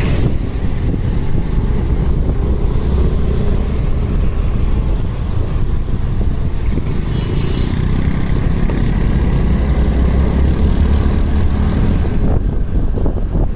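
Wind rushing over a helmet-mounted phone microphone on a moving motorcycle, mixed with the bike's engine and road traffic noise in a steady loud rumble.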